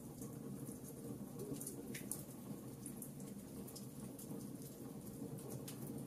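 Wood fire crackling: irregular sharp pops and snaps from burning logs over a steady low background.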